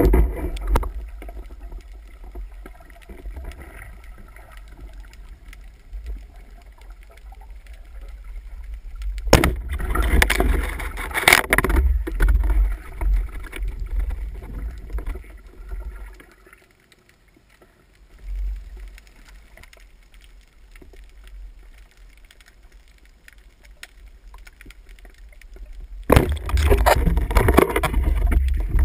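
Muffled underwater sound through a camera's waterproof housing: a low rumble of moving water with louder swishing stretches as the spearfisher swims, and a sharp knock about nine seconds in.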